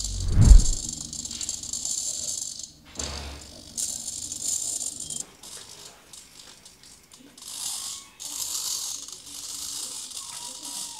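Pair of 9-gram micro servos in a pan-and-tilt camera mount whirring and rattling in short stop-start bursts as they swing the camera around. A deep thump comes about half a second in.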